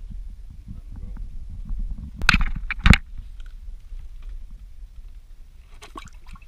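Low steady rumble with two sharp knocks about half a second apart, a little over two seconds in, and a few faint clicks near the end.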